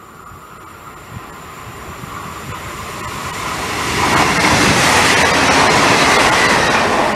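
Passenger train running through a station at speed without stopping. Its noise rises steadily as it approaches and is loudest over the last three seconds as the carriages rush past close by.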